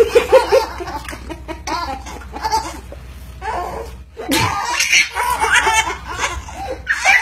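A man laughing in short bursts, with a sudden loud burst of sound about four seconds in.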